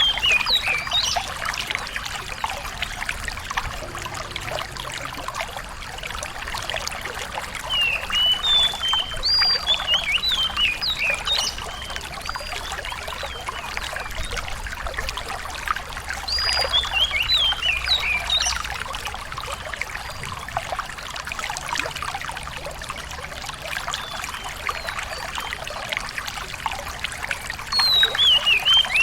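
Water running and trickling steadily, with a small songbird breaking in with short bursts of quick, high, sweeping notes: once at the start, twice in the middle and once near the end.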